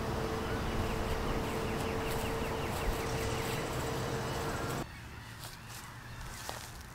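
Outdoor ambience: a steady hum with faint repeated chirps, which cuts off abruptly about five seconds in, leaving a quieter background with a few light clicks.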